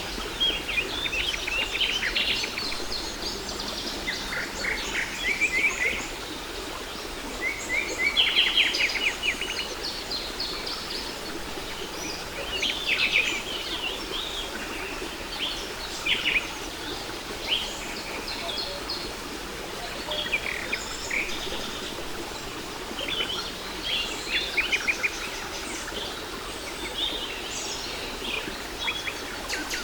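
Several birds singing, with short chirps and fast rattling trills coming every second or two, over a steady rush of falling water from a waterfall.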